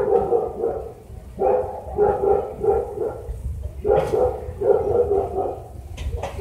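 A dog barking, a run of short barks about once a second.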